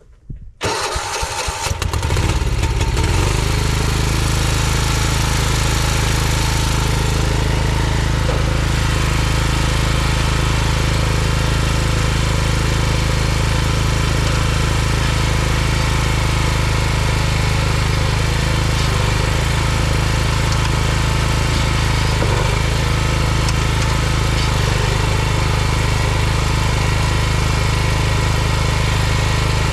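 Small lawn-tractor engine cold-starting about half a second in, catching within a second or two, then running steadily.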